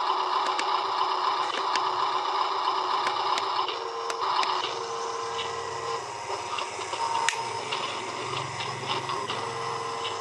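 Whirring of a Huina RC dump truck's small electric motors and gearing as it inches forward and raises its tipper bed. The whir changes and drops in level about four seconds in.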